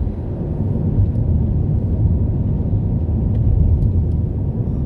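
Steady low road and engine rumble of a car being driven, heard inside the cabin.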